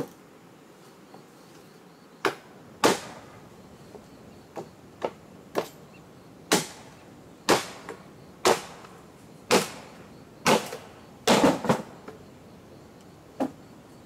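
A hand tool striking repeatedly, about one sharp blow a second with a short ring after each, with a quick double strike near the end.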